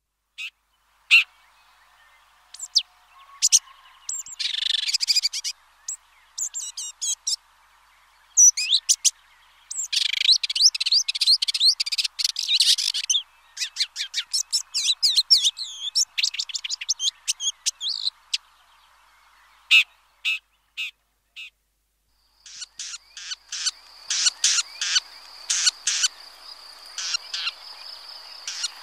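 Red-backed shrike singing: a long, varied, scratchy warble of quick chirps, clicks and rattling phrases broken by short pauses. Toward the end comes a run of sharp, evenly repeated notes over a steady high tone.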